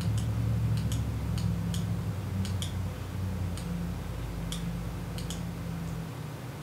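Computer mouse clicking about a dozen times at an irregular pace, over a steady low hum.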